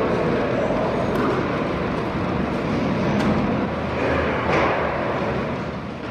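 Bus station interior ambience: a dense crowd murmur mixed with terminal background noise, with a few short sharp clicks, beginning to fade out near the end.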